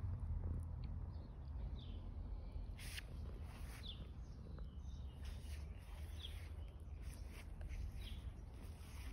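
A small bird chirping in the background, one short high note about once a second, over a low steady rumble. A brief rustle comes about three seconds in.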